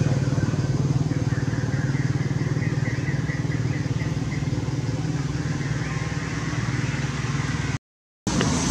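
An engine running steadily, a low pulsing hum that slowly fades, with a quick run of high chirps about three seconds in. The sound drops out for a moment near the end.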